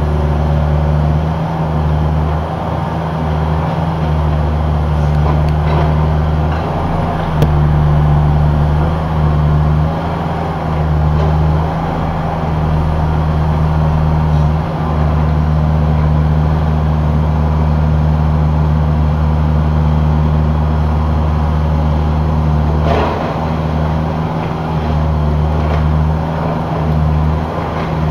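Caterpillar mini excavator's diesel engine running with a steady low hum that dips and returns every few seconds as it works, with a couple of brief knocks.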